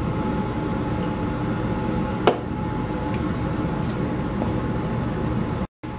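Steady mechanical room hum, with a single sharp click a little past two seconds in; the sound drops out completely for a moment near the end.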